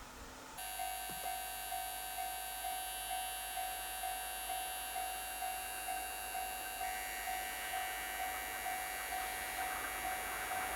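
Japanese railway level-crossing alarm ringing, an evenly repeating electronic 'kan-kan' tone about two and a half times a second over a steady hum, warning of an approaching freight train.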